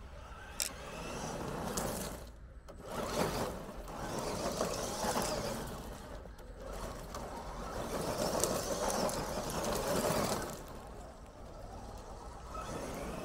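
Absima Sherpa RC crawler's electric motor whining and its tyres crunching over gravel, in three long surges of throttle that swell and fade, with a single sharp click about half a second in.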